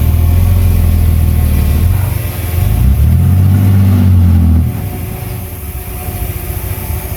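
Heavy diesel engine of earthmoving machinery running under load. It revs up, rising in pitch from about three seconds in, then drops back sharply a little before the five-second mark.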